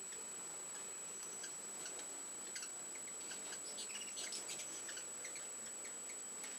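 Ruby-throated hummingbirds chipping around a feeder: many short, high ticks, scattered and thickest near the middle, over a steady high-pitched whine.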